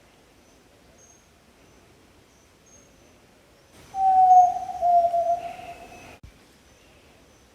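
Yellow-legged tinamou (jaó-do-sul) giving one long, low whistled note that falls slightly in pitch and lasts about two seconds, starting about four seconds in. Faint high chirps repeat in the background.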